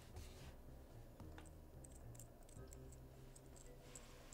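Near silence with a few faint, sharp clicks of small metal pen-puzzle parts being handled and tapped together.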